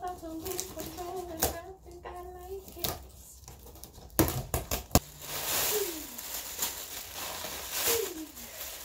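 A wordless voice holds a few steady notes at first. Then a few sharp cardboard knocks come as the shipping box is opened, followed by plastic packing wrap rustling and crinkling as it is pulled out of the box.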